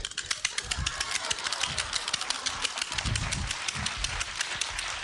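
Machine-gun fire sound effect: a rapid, even run of sharp clicks, about ten a second, that keeps going without a break.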